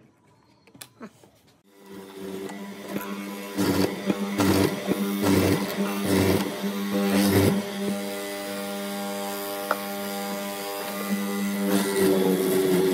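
Benchtop hollow-chisel mortiser running with a steady motor hum, its square chisel plunging into pine about once a second for several strokes, each a loud rasping cut. More cuts come near the end. The first second or so is nearly quiet, with a couple of small ticks.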